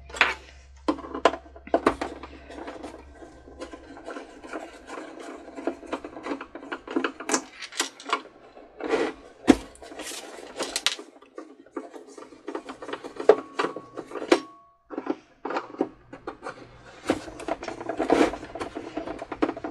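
Long-shaft No. 2 Phillips screwdriver turning screws out of deep holes in a plastic Cricut Expression housing: irregular clicks, scrapes and squeaks of the bit in the screw heads and against the plastic, over a faint steady hum.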